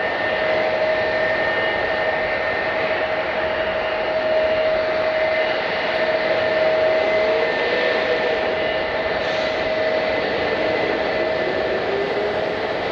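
Airliner engines running with a broad, steady rushing noise and a constant high whine held at one pitch.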